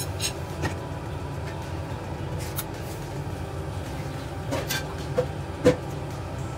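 Chopsticks clicking against a stainless steel frying pan while stir-frying, then a glass lid being set on the pan, with scattered clinks and knocks; the loudest is a sharp knock near the end. A steady low hum runs underneath.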